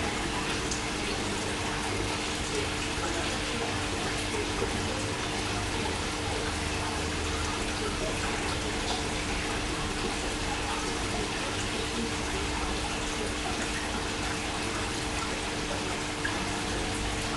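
Aquarium water running: a steady, even rush of water, typical of a filter return or air bubbling, with a low steady hum underneath.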